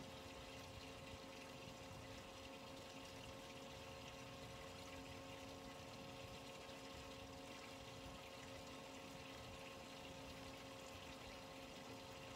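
Faint steady hum over the wash of water around a fishing boat, with several unchanging tones and no change in level.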